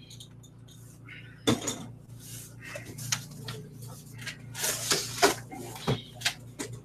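Cardboard box and packing being handled while a computer case is unpacked: irregular knocks and clicks with bursts of rustling, the loudest knock about a second and a half in.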